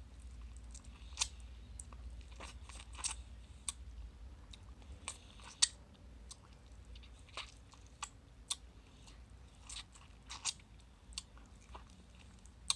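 Mouth sounds of a person sucking and chewing ripe mango flesh off the peel: irregular wet smacks and clicks, the sharpest about five and a half seconds in.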